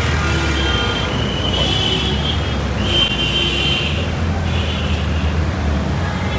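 Street traffic in a jam: car engines running with a steady low rumble, overlaid by intermittent high steady tones that come and go every second or so.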